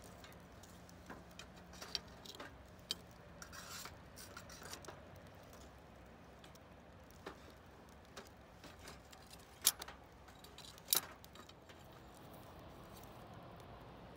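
Scattered sharp clicks and light clinks over a quiet background, the two loudest a little over a second apart in the second half.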